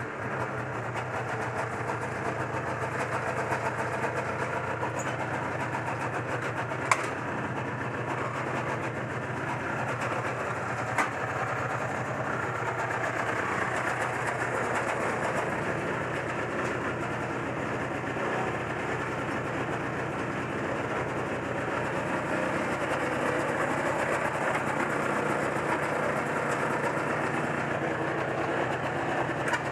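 Yamaha BR 250 Bravo snowmobile's two-stroke engine idling steadily, with two sharp clicks about seven and eleven seconds in.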